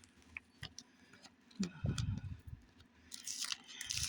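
Plastic packaging being handled and unwrapped, with a few soft knocks and then crinkling and rustling that starts about three seconds in.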